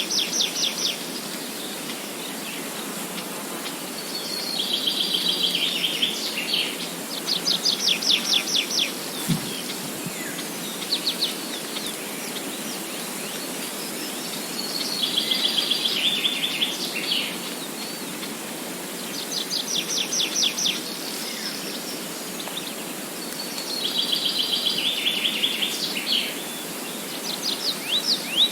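Songbirds singing in repeated phrases every few seconds: fast, high trills of rapid notes alternating with denser, buzzier phrases, over a steady background hiss.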